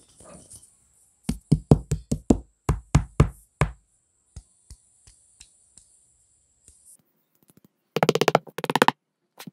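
Handling noise from a clip-on lavalier microphone being fitted against a wireless earbud: a quick run of about ten sharp knocks in the first few seconds, then two short buzzy tones about eight seconds in.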